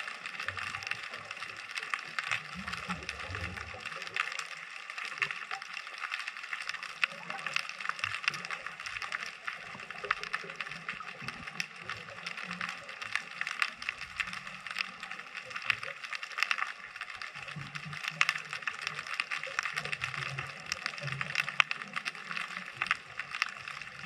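Underwater ocean ambience heard through a GoPro's dive housing: a steady, dense crackle of fine clicks, with low irregular sounds now and then.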